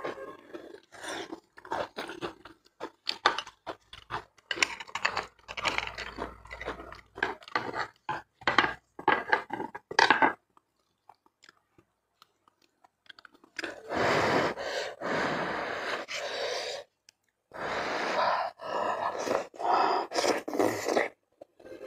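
Close-miked wet chewing and lip-smacking of someone eating soft braised beef bone marrow, as a run of quick clicky mouth noises. About ten seconds in there is a short gap of near silence, then longer, noisier mouth sounds follow.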